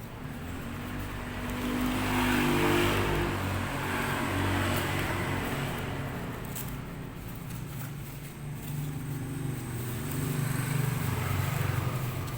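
A motor vehicle engine running as vehicles pass by, growing louder about two seconds in and again near the end.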